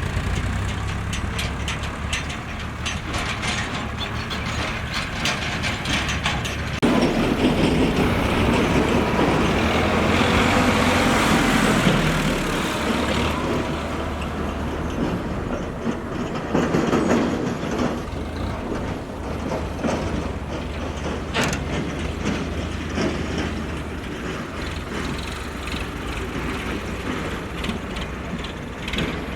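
Mahindra EarthMaster SX backhoe loader working, its diesel engine running steadily with metallic clatter and clanking from the machine. There is a louder, rushing stretch about a quarter of the way in lasting several seconds, a shorter swell a little later, and a sharp clank about two-thirds of the way through.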